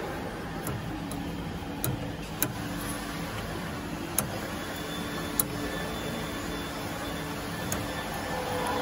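Hex key clicking against the metal cable connector of a welding power source as the positive cable is tightened into its output socket: about seven short, sharp metallic clicks, irregularly spaced, over a steady low hum.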